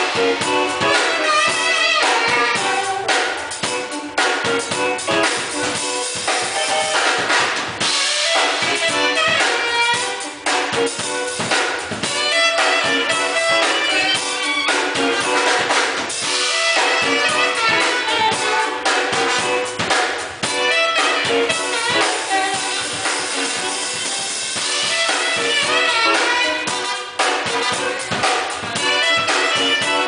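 Live band playing: a drum kit keeps a steady beat under saxophone and brass.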